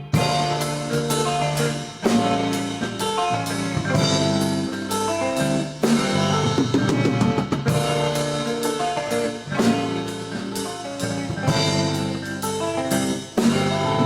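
Rock band playing an instrumental intro live: a drum kit keeps a steady beat under sustained electric guitar chords and bass. The full band comes in sharply at the start, after guitar alone, and there is no singing.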